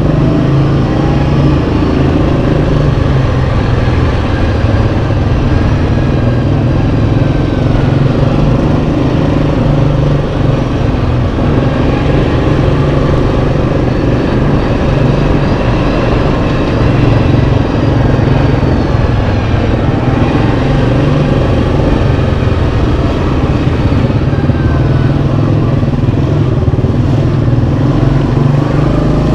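Yamaha Kodiak 700 ATV's single-cylinder engine running steadily under way, its pitch drifting up and down a little with the throttle.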